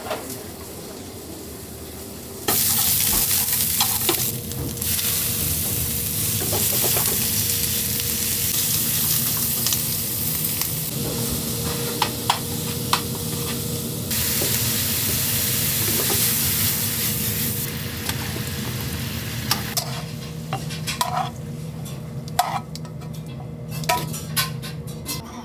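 Sliced meat and onions sizzling loudly in a hot frying pan as they are stir-fried, with scattered clicks of metal utensils against the pan. The sizzle starts suddenly a couple of seconds in and dies down near the end.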